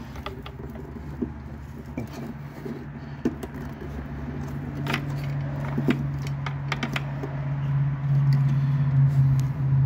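Wiring-harness wires and metal spade connectors being handled and pushed on, giving scattered small clicks and light rattles. Under them runs a steady low hum that grows louder in the second half.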